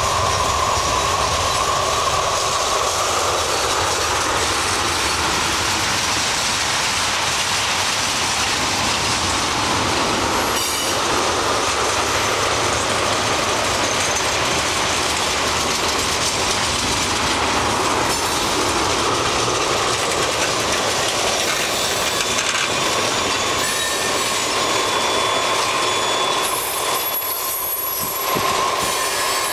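Freight train of boxcars and tank cars rolling past: a steady rush of steel wheels on rail, with a high wheel squeal running through it.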